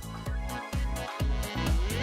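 Background electronic dance music with a steady four-on-the-floor kick drum, about two beats a second, and synth chords.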